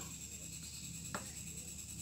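Faint background: a steady high-pitched trill and a low hum, with one small click about a second in.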